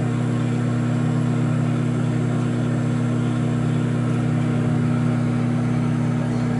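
Panasonic countertop microwave oven running mid-cycle: a steady low hum.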